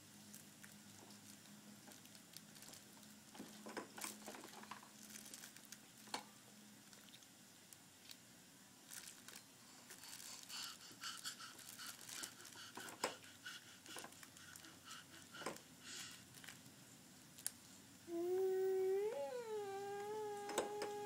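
Light clicks and rattles of plastic toys and beads on a baby activity center being handled by a baby. Near the end, a much louder, long, steady vocal sound from the baby, with a short upward bend in pitch.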